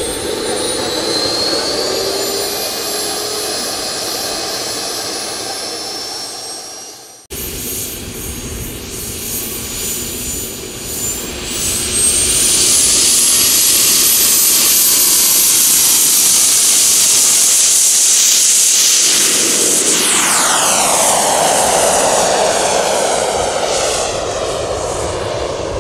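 RC model jet's miniature gas turbine whining. After a break about seven seconds in, the turbine spools up with a rising high whine to full power for takeoff and holds there. Near the end its pitch sweeps down as the jet passes by.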